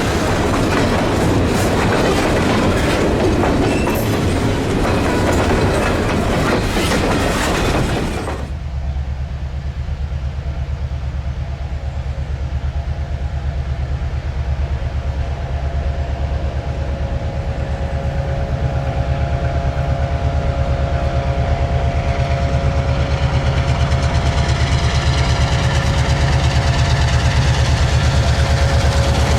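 Freight cars rolling past with clickety-clack over the rail joints. About eight seconds in, this gives way abruptly to the steady low drone of an EMD GP7u diesel locomotive's engine, with a few held tones above it, growing slowly louder toward the end.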